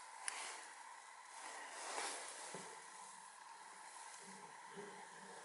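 Quiet room tone with faint handling noise from a handheld camera, and a small click just after the start.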